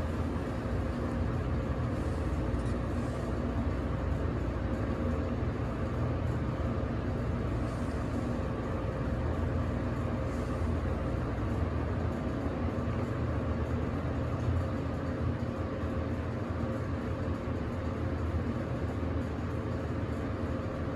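Schindler 300A elevator cab travelling, heard from inside the car: a steady low hum with a faint steady tone over it.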